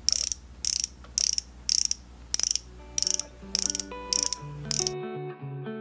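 Ratcheting clicks from twisting the base of a click-dispensing liquid makeup pen with a cushion tip, in short runs a little under twice a second, with no product yet coming out. Soft plucked-guitar background music comes in about three seconds in, and the clicking stops shortly before the end.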